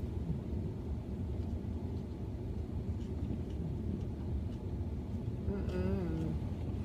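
Steady low rumble of a car's idling engine heard inside the cabin. About five and a half seconds in comes a short, wavering hummed "mmm" of enjoyment while chewing.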